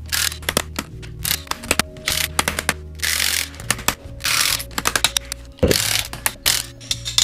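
Cordless impact wrench undoing the differential-to-axle-casing nuts on a Land Rover front axle, run in short bursts of about half a second each, with sharp clicks of metal and socket between them.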